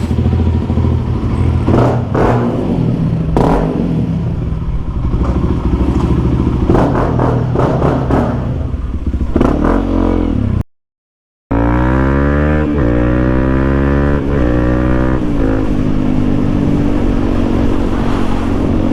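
Honda CRF300L dual-sport motorcycle's single-cylinder engine running through a full aftermarket exhaust while riding, with some clattering. After a brief dropout about 11 seconds in, the engine pitch rises as the bike accelerates, then holds steady.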